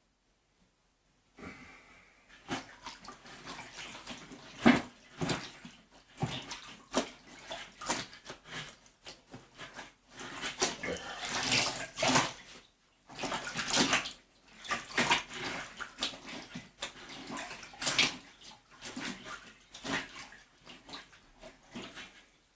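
Clothes being washed by hand in a bucket of water: irregular sloshing and splashing, starting about a second and a half in.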